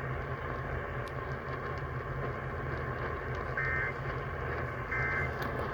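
Steady radio static and hum, then, starting about three and a half seconds in, two short warbling data bursts about 1.4 seconds apart: the EAS SAME digital end-of-message tones that close the alert broadcast.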